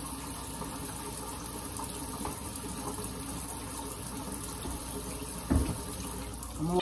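Kitchen faucet running steadily into the sink while hands are washed under it, with one short thump about five and a half seconds in.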